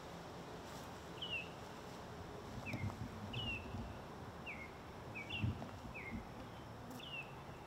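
A small bird calling from the trees: short, high chirps that slide downward, repeated every half second to a second, over a steady outdoor hiss. A few low thuds come in about three seconds in and again near the middle.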